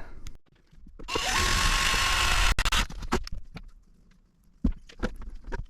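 Electric drill running for about two seconds, a steady whine over a rasping noise, then stopping; a few short knocks and clicks follow.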